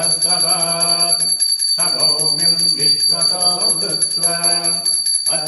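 Puja hand bell rung steadily and fast, a continuous high ringing, under a man's held, steady-pitched ritual chanting that breaks off briefly two or three times.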